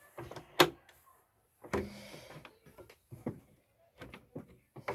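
Knocks and clunks of a Royal typewriter being handled in its case as it is worked loose to lift out: one sharp knock about half a second in, another a second later, then a few lighter taps and clicks.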